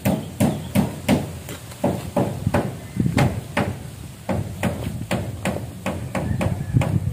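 A hand digging tool striking into packed earth again and again, about two to three strikes a second, as fill soil is dug out.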